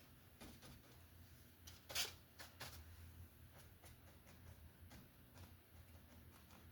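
Faint strokes and dabs of a paintbrush on canvas, a series of soft short scrapes with a louder one about two seconds in, over a low steady hum.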